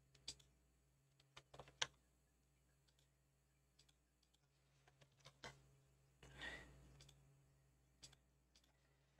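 Faint, scattered clicks of a computer mouse and keyboard, in small clusters with near silence between. A soft noise of about half a second comes around six and a half seconds in.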